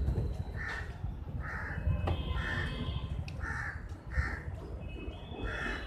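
Crows cawing, about six separate caws at uneven intervals, over a steady low rumble.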